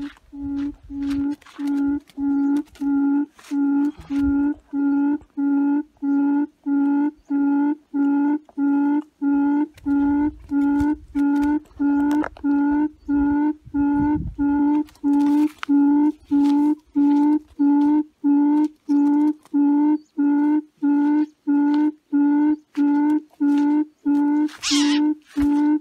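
Recorded bird call played on a loudspeaker as a hunting lure: one low hooting note repeated evenly, about one and a half times a second. A brief scratchy sound stands out about a second before the end.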